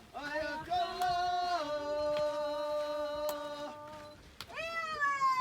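A single voice singing or chanting in long held notes. The pitch steps down once and ends in a long sliding fall near the end.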